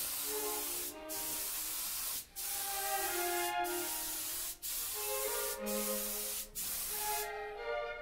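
Compressed-air spray gun hissing as it sprays pre-catalyzed lacquer, in stretches of a second or so that break off sharply and start again several times. Quiet background music plays underneath.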